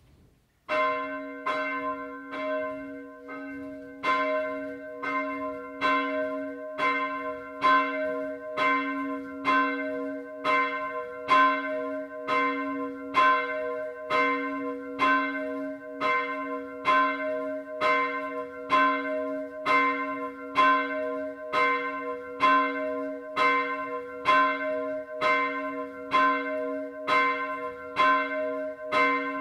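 Bronze church bell of 290 kg, cast 1689 with the nominal note c'', ringing alone. Its clapper strikes about once a second, each stroke ringing on into the next. The ringing begins about a second in, and the strokes grow louder after a few seconds.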